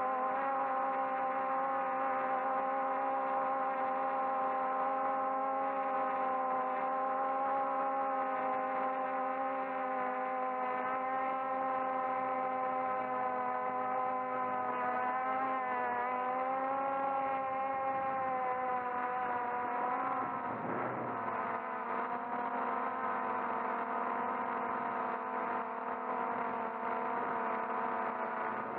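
Multirotor drone's electric motors and propellers whining steadily, heard close up from the drone itself. The pitch wavers briefly midway and dips a little later, after which the whine runs slightly quieter.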